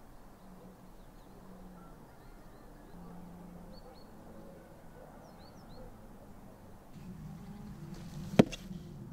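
Faint, scattered bird chirps over a low background, broken near the end by one sharp, loud knock.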